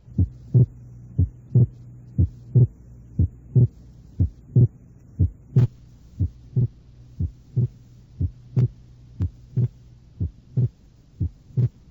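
Recorded heart sounds heard through a stethoscope: a regular lub-dub about once a second, over a steady low hum. It demonstrates abnormal splitting of the second heart sound in atrial septal defect, where the pulmonary component is delayed and the split is fixed.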